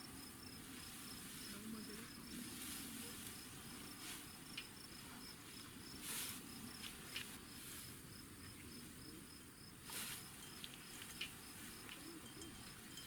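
A cricket chirping steadily outdoors, a fast, even run of short high-pitched chirps, over faint background noise. Two brief scuffing sounds come through, about six and ten seconds in.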